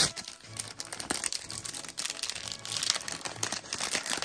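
Crinkling and crackling of a toy surprise ball's packaging being unwrapped by hand, a dense run of small crackles with a sharper one at the start.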